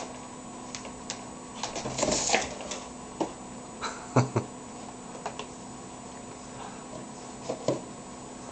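Kittens' paws tapping and knocking against a computer monitor and desk, irregular light taps with a short scuffle about two seconds in and a louder thump about four seconds in.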